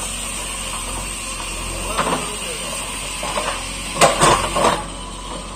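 Diesel engine of a JCB backhoe loader running steadily under load while it digs, with a clatter of rocks and soil about four seconds in as the bucket scrapes into the rubble pile.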